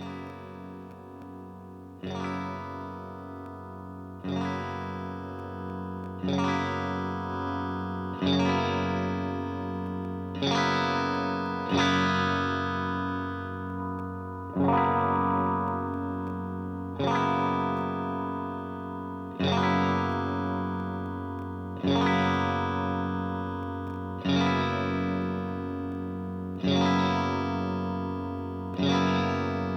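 Ibanez S670QM electric guitar through a Deluxe Reverb-style amp patch, strumming chords one at a time about every two seconds, each left to ring out and fade. The tone is meant to be clean but is really not that clean, with a slight edge of breakup.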